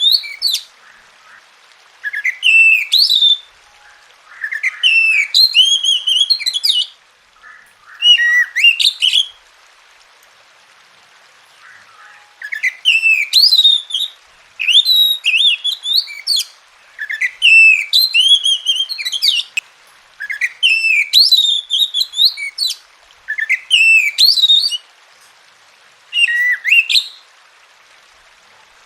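Oriental magpie-robin (kacer) singing in loud, varied phrases of quick whistled notes and glides, each phrase a second or so long, separated by short pauses with a longer pause before the middle. This is a gacor song used as a tutoring and stimulation recording for a kacer that is reluctant to sing.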